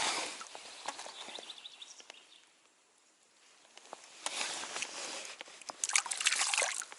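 Footsteps and rustling in bankside grass, with scattered crackles and a quiet lull midway before louder rustling in the second half.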